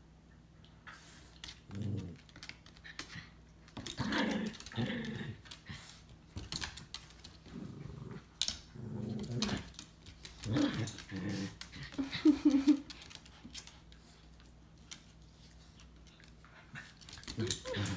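Two dogs, a boxer-lab mix puppy and a schnauzer-cairn terrier mix, play-fighting with low growls in short bouts, the loudest about two-thirds through, with scattered clicks and scuffles of their movement between.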